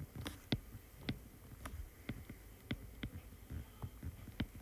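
Handwriting: a pen tip making faint, irregular ticks and taps, about ten of them, as a word is written out.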